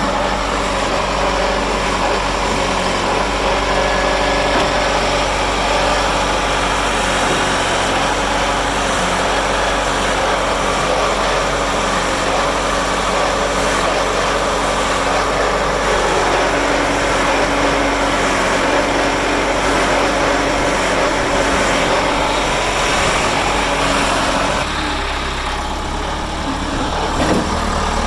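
Diesel engine of a John Deere 610B backhoe loader running steadily, its note shifting about halfway through and easing a little near the end.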